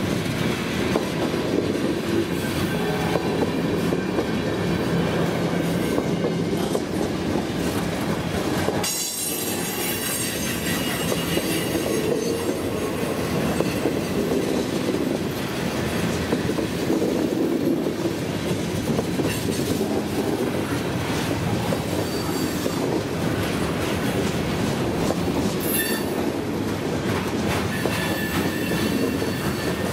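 Freight cars of a CSX train rolling past close by: a steady loud rumble of steel wheels on the rails, with clickety-clack over the rail joints and some wheel squeal.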